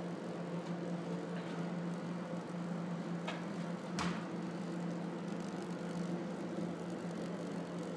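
A steady mechanical hum, engine-like and unchanging, with two short clicks a little past the middle, the second the louder.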